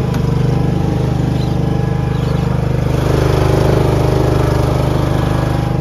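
Single-cylinder Briggs & Stratton petrol engine of a Stiga Park 520 P ride-on mower running steadily, a little louder about three seconds in.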